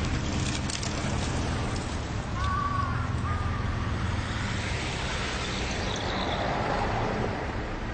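Road traffic at a city crossing, with vehicle engines running as a steady low hum. A few short clicks sound in the first two seconds, and a brief high squeak comes about two and a half seconds in.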